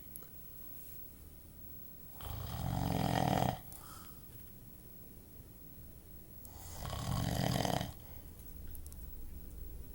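Snoring: two long snores about four seconds apart, each lasting a second or more, with quieter breathing between them.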